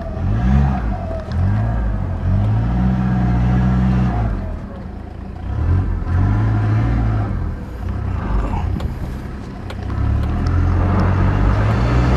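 Toyota Hilux pickup engine revving up and down under load as the truck struggles to climb a loose dirt slope in two-wheel drive. The revs climb and hold, then drop back about five and again about ten seconds in.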